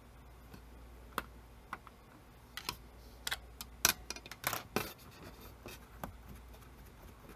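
Irregular light clicks and scrapes of the small plastic and metal parts in a CCR-82 cassette recorder's tape mechanism as a rubber belt is worked around its pulleys by hand. The clicks are busiest and loudest about four to five seconds in.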